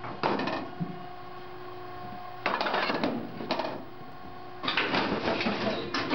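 Metallic clattering and rattling in three bursts, a short one at the start, then two longer ones in the second half, over a steady machinery hum.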